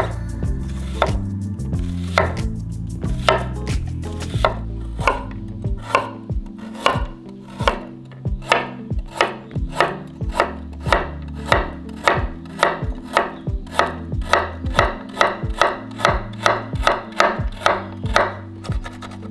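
Wüsthof Classic 6-inch chef's knife chopping food: a few scattered strokes at first, then a steady rhythm of about two to three chops a second.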